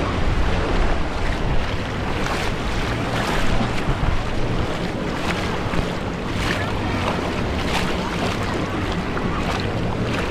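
Steady rushing and splashing water with wind buffeting the microphone, and a few brief splashes along the way.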